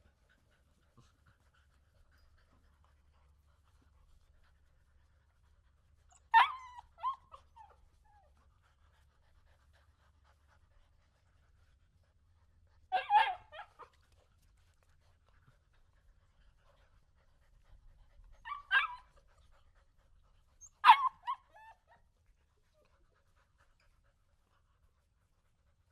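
A domestic dog giving four short calls a few seconds apart, each followed by a fainter second one.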